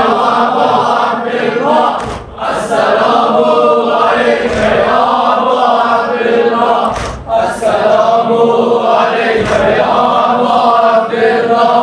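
A group of voices chanting a mourning noha refrain in unison, with two short breaks about five seconds apart.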